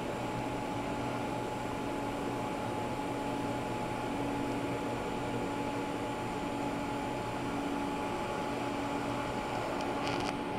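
DC TIG welding arc on aluminium plate: a steady, even hiss with a faint constant whine running under it.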